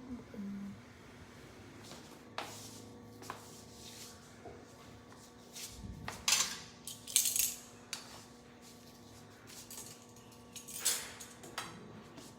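Kitchen utensils and dishes being handled: a scatter of clinks and knocks, the loudest a few clattering strikes about six to seven seconds in and another near eleven seconds.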